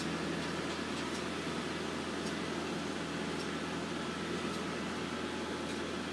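Kubota tractor engine running steadily while working an MTE pine straw baler, an even mechanical drone with faint light ticks about once a second.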